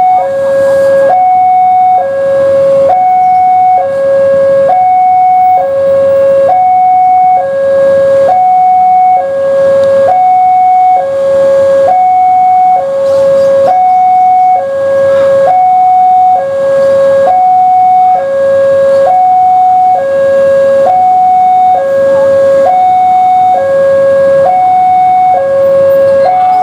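Railway level-crossing warning alarm: a loud electronic two-tone hi-lo signal, each tone about a second long, repeating evenly at constant level. It signals that a train is approaching.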